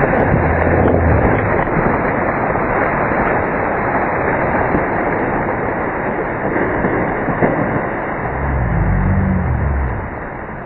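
Steady rush of wind buffeting the microphone, with tyre and trail noise, as a mountain bike rides down a trail; it eases near the end.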